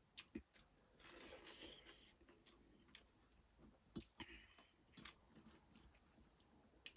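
Quiet eating by hand: chewing and mouth noises, with a few short clicks of fingers and rice against a steel plate, over a steady high-pitched hiss.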